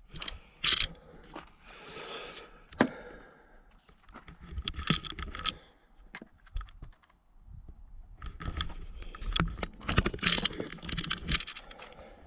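Gear being handled in the back of a minivan: rustling, scraping and clattering, with sharp clicks and knocks, the loudest two in the first few seconds, as a 12-volt cord plug is fitted into a portable power station.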